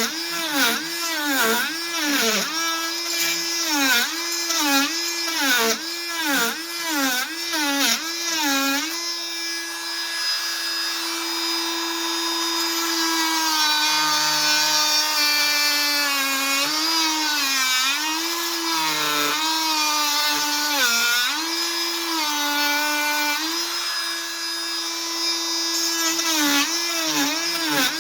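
Fein MultiMaster 500 cordless oscillating multi-tool running with a steady buzzing pitch that sags about twice a second as the blade is pushed into the work and bogs under load. It runs steadier through the middle with only occasional dips, then sags quickly again near the end.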